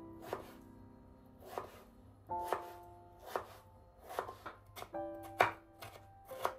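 Chef's knife cutting a raw peeled potato on a wooden cutting board: the blade knocks on the board about once a second, the loudest stroke a little past five seconds in. Background music plays underneath.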